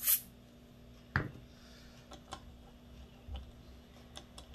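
Small clicks and taps of metal gearbox parts being handled as a gear is set into a Ver3 airsoft gearbox shell, with one sharper knock about a second in.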